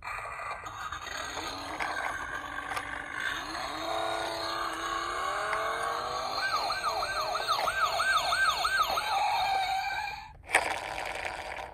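Toy ambulance and police car minicar sirens sounding together, overlapping: one siren rises slowly in pitch, then a fast yelp repeats about three times a second. Near the end comes a sharp click followed by a short burst of hiss.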